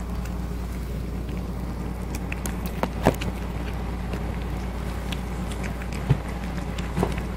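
A cat eating from a stainless steel bowl: scattered soft clicks and ticks of chewing and of food against the metal, sharpest about three and six seconds in, over a steady low hum.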